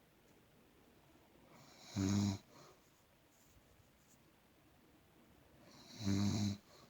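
An elderly woman snoring in her sleep: two loud snores about four seconds apart, each a short low buzz with a quieter breath leading into it.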